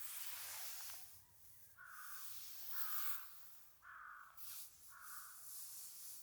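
A crow cawing four times, each harsh caw about half a second long and roughly a second apart, over a faint rustling hiss at the start.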